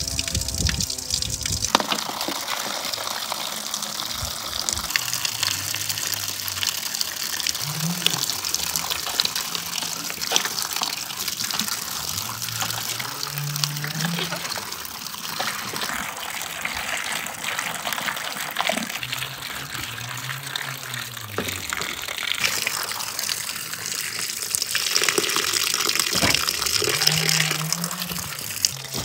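Water running and splashing into a large metal basin of strawberries as hands swish and rinse the berries. The rush is steady and grows louder near the end.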